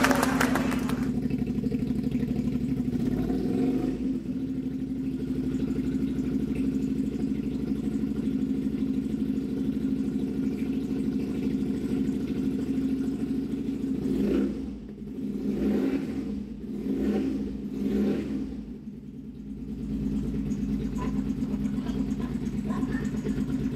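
Honda VT250 Spada's 250 cc V-twin engine idling steadily, with four short throttle blips about two-thirds of the way through before it settles back to idle.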